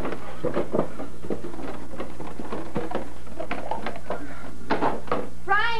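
Rummaging through kitchen cupboards: a run of irregular knocks and clatters as cardboard boxes are tossed onto the floor, over a steady low hum. Near the end comes a short held high-pitched note.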